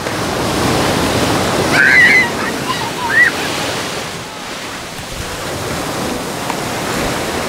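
Ocean surf washing up the beach: a steady rush of breaking waves and foam around the shallows.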